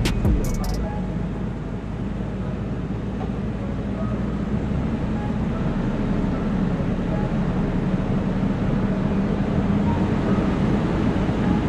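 Off-road vehicle engine running steadily at low speed, with tyre and trail noise, while driving on a dirt trail. A few sharp clicks sound in the first second.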